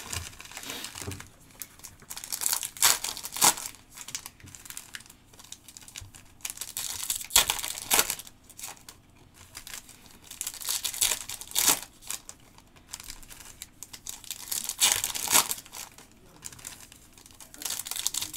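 Foil trading-card pack wrappers crinkling and tearing as packs are ripped open and handled, in bursts every few seconds.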